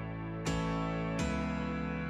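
Instrumental background music: sustained chords, with new chords struck about half a second and a second and a quarter in.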